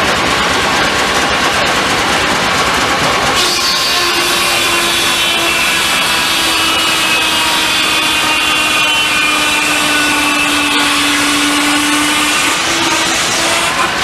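Steam sawmill's saw running in a cut over the dense noise of the mill: about three and a half seconds in a steady whine with high ringing overtones sets in, sinking slightly in pitch, and stops near the end.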